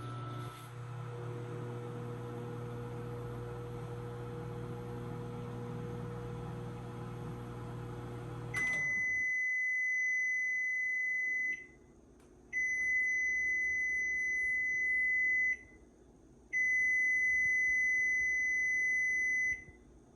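Frigidaire FFMV1645TD over-the-range microwave oven running empty with a steady hum. About eight and a half seconds in, the hum stops and the oven sounds three long end-of-cycle beeps, each about three seconds.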